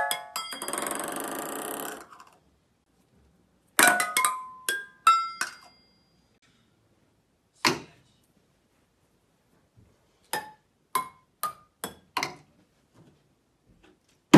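Ping pong ball bouncing off stainless steel pots and pans, each hit a short metallic ping with a brief ring: a quick run of pings in the first half, a single duller hit in the middle, then five pings in a row, speeding up slightly. A hair dryer's steady blowing runs under the first couple of seconds, and a louder single hit comes at the very end.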